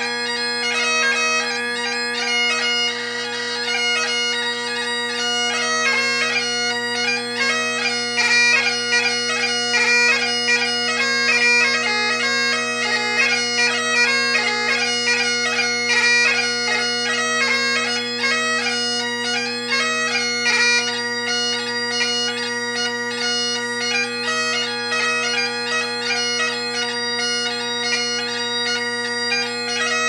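Great Highland bagpipe played solo: the drones sound a steady chord underneath while the chanter plays a fast, tightly ornamented melody.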